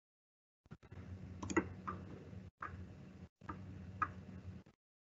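Faint room noise with a low hum and a few soft clicks, cut to dead silence several times as a microphone noise gate shuts and reopens.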